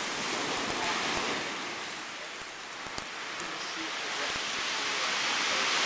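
Steady hiss of surf and steam where waves wash over lava flowing into the sea, with a few sharp clicks scattered through it.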